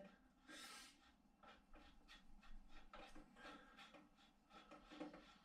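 Faint, scattered clicks and scrapes of a BMX pedal being threaded by hand onto the left crank arm.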